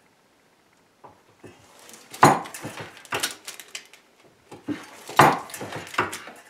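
Bench-mounted lever crimping tool pressing a double ferrule onto snare cable: two rounds of sharp metallic clicks and clanks, about two and five seconds in, one for each of the two crimps.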